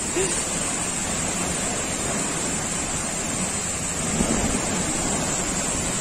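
Waterfall's water rushing in a steady, unbroken roar.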